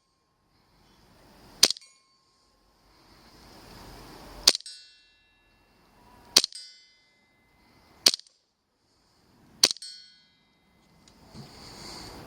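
Five airsoft gun shots, one every one and a half to two seconds, each a sharp crack; most are followed by a short metallic ring from a steel target being hit.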